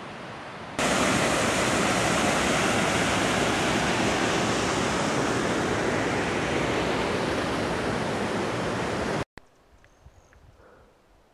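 Wind River, a mountain stream, rushing steadily over rocks: loud, even water noise that starts abruptly about a second in and cuts off suddenly near the end.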